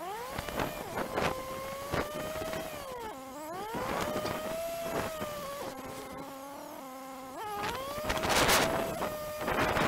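Motorcycle engine riding at low speed: its note climbs, drops as the throttle closes about three seconds in and again about seven and a half seconds in, then climbs again. Bursts of wind rush on the microphone near the end.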